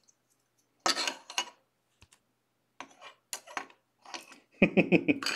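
Hard plastic trading-card cases clicking and clacking as they are handled and set into a desk stand, in a few short bursts. A brief, louder voice sound in the last second.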